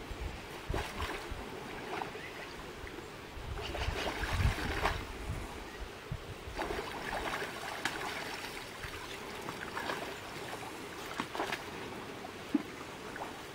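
River water flowing and trickling, with scattered splashes and sloshes from a brown bear wading and nosing in the shallows. A brief low rumble comes about four seconds in.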